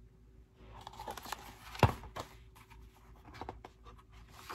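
A book and its paper pages being handled: scattered rustling and small clicks, with one sharper knock about two seconds in.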